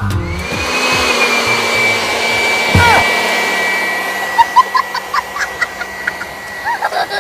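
Handheld electric air blower running steadily, a rushing of air with a high whine that drops slightly in pitch about four seconds in. Short high chirps sound over it in the second half.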